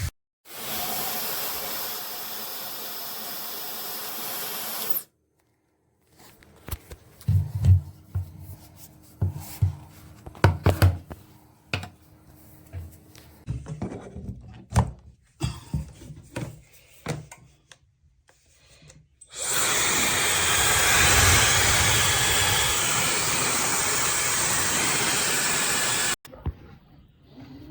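High-speed brushless hair dryer running with a steady rush of air for a few seconds, then stopping. This is followed by a stretch of scattered handling knocks and clicks. Then the dryer runs again, louder, for about six seconds and cuts off suddenly.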